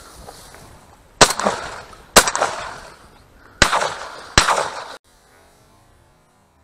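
Four shotgun shots at flying ducks, in two pairs about a second apart, each with a short echo trailing off. The sound cuts off abruptly about half a second after the last shot.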